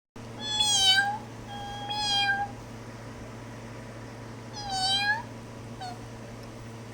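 Cat meowing: three drawn-out meows, the last bending up at its end, then a short faint one about six seconds in.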